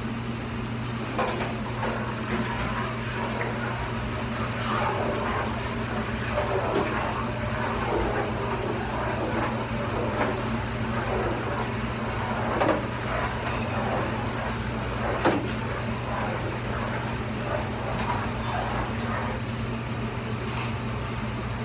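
Kitchen cooking sounds: a steady low hum with scattered clicks and knocks of pots and utensils being handled.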